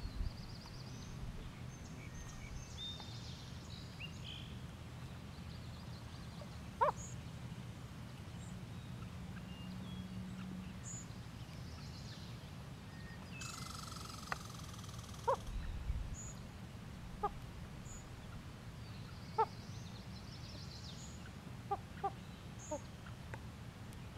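Common loons giving short, soft calls now and then, more often near the end, with faint high chirps from other birds.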